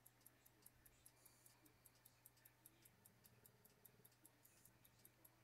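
Roughly 100-year-old American Waltham 17-jewel pocket watch ticking faintly and evenly, about five ticks a second, its 18,000-beat-per-hour balance running steadily after being demagnetized.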